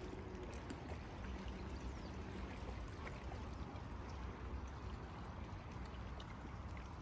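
Water sloshing and splashing steadily, with many small trickling splashes over a low rumble.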